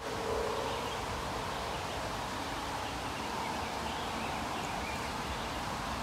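Steady outdoor background noise, an even hiss with no distinct event, and a brief tone lasting about half a second just after the start.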